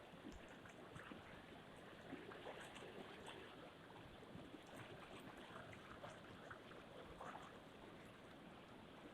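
Faint moving water: a steady wash with small irregular splashes and drips scattered through it.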